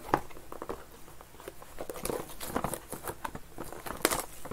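Clear plastic shrink wrap from sealed trading-card boxes crinkling and rustling in hands, with irregular small clicks and a sharper knock a little before the end.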